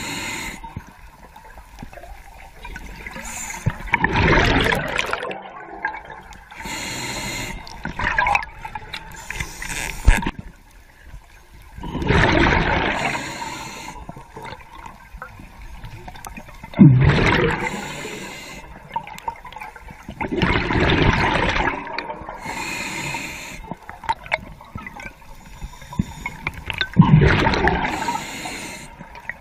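Underwater, a diver's exhaled air bubbles rush and gurgle past the microphone in bursts every four to five seconds, like regular breathing.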